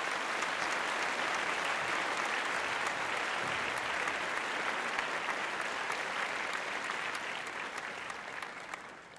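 Crowd applause, a steady patter of many hands clapping that fades away over the last couple of seconds.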